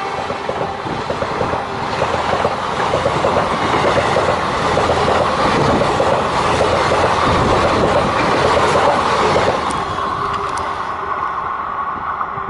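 Passenger express train coaches passing close by at speed: a loud rushing rumble of steel wheels on rail with a rapid, rhythmic clatter over the rail joints, easing off near the end as the rear of the train goes by.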